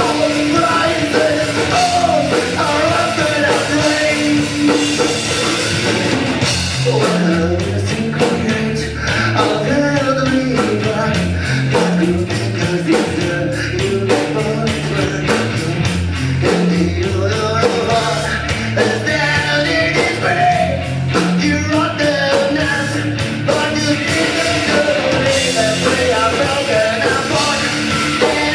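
A live rock band playing loud. A fast, even drum beat drives through the middle of the passage.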